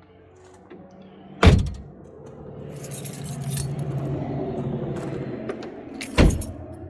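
Two loud knocks about five seconds apart, with rattling and scraping of loose parts between them, as parts and bins are handled on a repair van's shelves.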